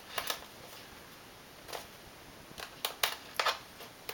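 Small irregular clicks and ticks of a jeweler's Phillips screwdriver working a tiny bottom-case screw out of a 13-inch MacBook Pro, with several clicks close together in the second half.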